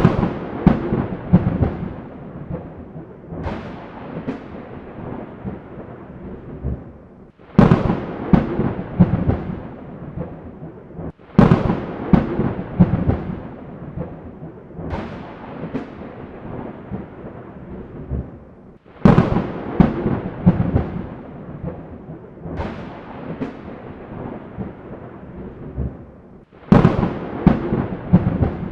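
Thunderstorm: a string of sudden thunderclaps, each cracking sharply and then rolling off in rumbles over a few seconds, with smaller rumbles between them and a steady hiss of rain underneath.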